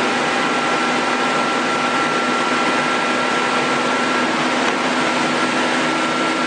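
Steady machine running noise from the powered-up CNC lathe: an even whir and hiss with a steady high whine over a low hum, unchanging throughout.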